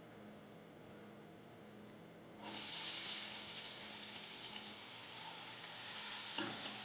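Faint room tone, then about two and a half seconds in, food starts sizzling in hot oil in a pan, a steady frying hiss that carries on.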